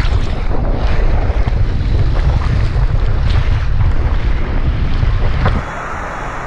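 Water rushing and splashing around a rider sliding down a mat water slide, spray hitting the camera, with heavy wind buffeting on the microphone. About five and a half seconds in it gives way suddenly to a quieter, steady outdoor background.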